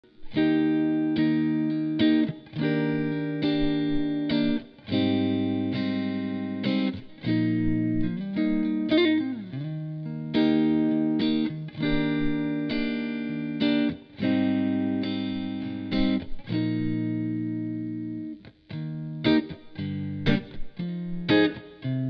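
Fender Stratocaster electric guitar played through a Marshall amplifier and cabinet: chords strummed and left ringing, struck again every second or two. Around the middle the pitch dips and comes back up. Near the end the strums turn shorter and choppier.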